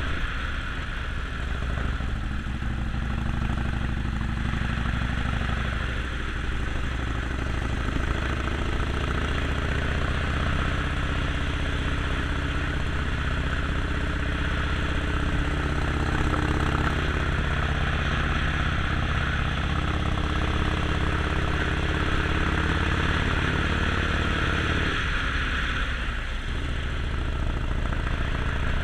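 Harley-Davidson Sportster Forty-Eight's air-cooled V-twin running under way, its note rising and falling in places over a steady rushing hiss.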